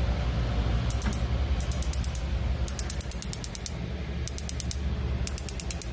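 Battery-powered electronic igniter of a Charbroil Performance gas grill ticking out sparks at its burner electrode, in five quick runs of about ten sharp ticks a second, each lasting under a second, while the ignition button is held: the freshly replaced igniter module is sparking. A steady low hum runs underneath.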